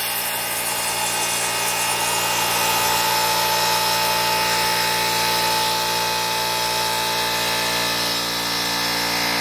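Gas burner firing into a homemade stove's steel fire tube: a steady roar of flame with a humming drone of many held tones, growing a little louder a few seconds in.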